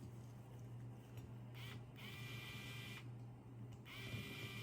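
Small electric screwdriver whirring in two short bursts of about a second each, each spinning up and then running steady, driving a screw in. A steady low hum runs underneath.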